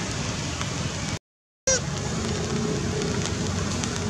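Steady rain falling on rock and foliage, a continuous even hiss. It breaks off completely for about half a second a little over a second in.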